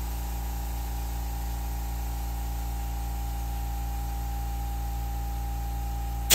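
Makita quiet-series air compressor running steadily with an even hum and hiss while it feeds air through the inflator chuck held on the tire's valve stem. A single sharp click sounds near the end.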